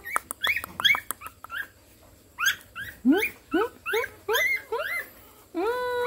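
Young puppy whimpering and yelping: a string of short, high-pitched cries that each rise in pitch, coming about two or three a second, then a longer drawn-out whine near the end.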